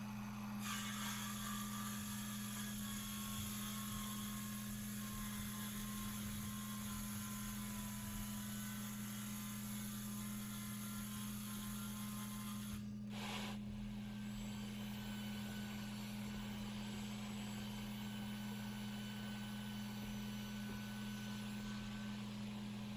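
A steady low electrical hum with faint background hiss.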